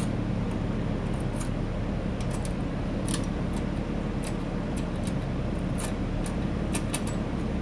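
Scattered light metallic clicks and clinks of hand tools and engine-mount hardware being handled, over a steady low hum.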